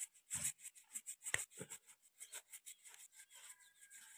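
Faint, irregular scraping and clicking of a thin screwdriver working against a steel steering part as an old oil seal is pried out, with a couple of sharper clicks in the first two seconds.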